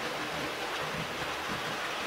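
Model trains running on the layout: a steady rolling hiss with a low rumble from wheels and motors on the track.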